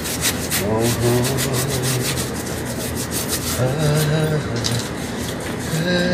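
A cloth rubbed quickly back and forth over a bicycle frame in even wiping strokes, about five a second, easing off briefly past the middle.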